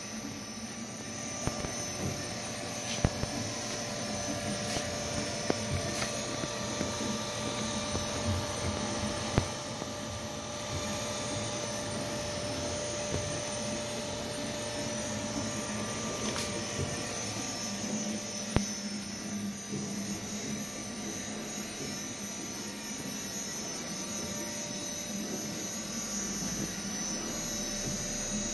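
CNC router's electrics humming steadily with several held high tones, and a few sharp clicks scattered through.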